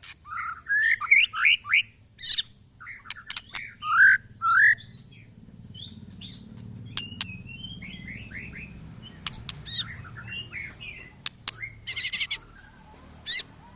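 White-rumped shama (murai batu) singing: a run of loud, varied whistled phrases mixed with sharp high notes, and a rapid rattling trill near the end.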